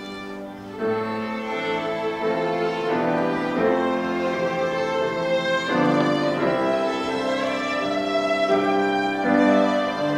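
Live chamber ensemble led by violins and viola, with keyboard, playing a slow, sad piece: long bowed notes held in chords that change every second or two. The strings swell in about a second in after a quieter opening moment.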